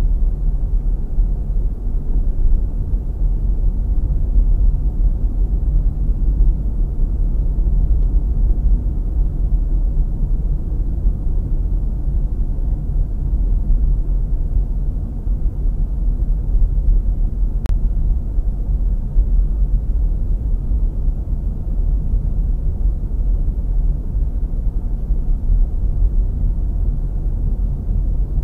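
Car driving at steady speed, recorded by a dashcam inside the cabin: a steady, low, deep engine and tyre noise that hardly changes.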